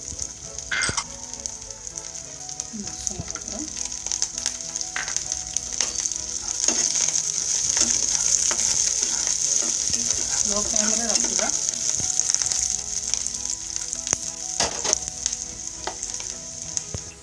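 Peanuts, garlic, dry red chillies and curry leaves sizzling in hot mustard oil in a nonstick pan, the sizzle growing louder through the middle. A spatula stirs them, scraping and tapping against the pan.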